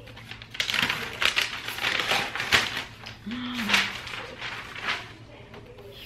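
Paper protective wrap being pulled and peeled off a new MacBook Air: a run of crinkling, crackling rustles and small tearing sounds, loudest in the first half.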